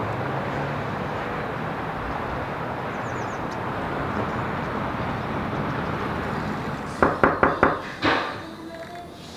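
A steady rushing background noise, then about seven seconds in someone knocks on a door: four quick raps and, a moment later, one heavier knock.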